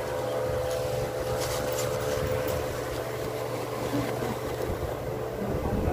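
A steady machine hum with a low drone underneath, and brief rustling of plastic bags about a second and a half in.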